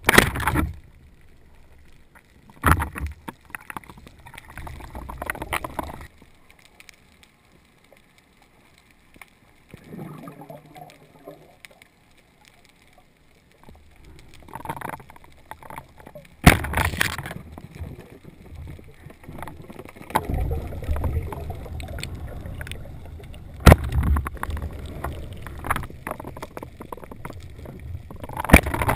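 Muffled underwater sound of water rushing and gurgling against a camera housing as a freediver moves over the reef. There are irregular surges, a loud one at the start and another about two thirds of the way through, and a single sharp click a few seconds before the end.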